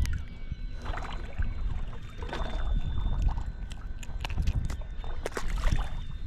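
Water sloshing against the hull of a small fishing boat, with scattered light clicks and knocks.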